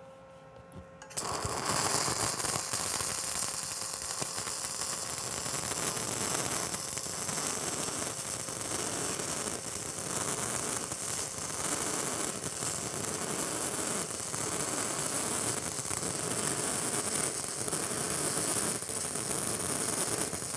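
Stick-welding arc from a 1/8-inch 6010 rod on DC positive, striking about a second in and then crackling steadily through a vertical root pass. The arc makes a ripping sound as it burns through the back of the joint, which is the sign of full penetration in the root.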